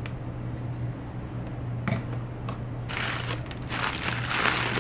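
Newspaper wrapping crinkling and rustling as a wrapped piece is unwrapped by hand, starting about three seconds in, after a couple of faint clicks.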